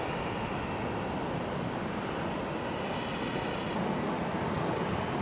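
Steady, even noise of an airliner's engines running.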